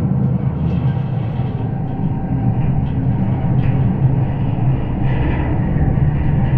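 Steel bridge girders picked up through a contact microphone, vibrating under passing traffic: a loud, dense, steady low rumble with faint scraping ticks above it.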